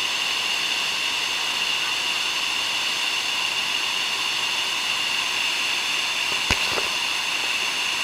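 Steady rushing noise of the Iguaçu Falls, a dense hiss of cascading water, with one sharp click about six and a half seconds in.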